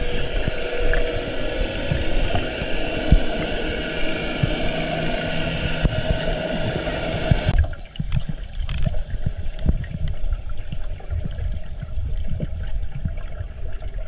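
Muffled underwater noise picked up by a diver's camera: a steady wash of water with irregular low knocks. The sound turns duller about halfway through, with the higher part falling away.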